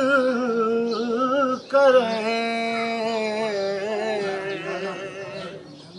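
A man singing Urdu devotional verse unaccompanied, drawing out the words in long, wavering melismatic notes. There is a brief break about two seconds in, then one long held note that fades near the end.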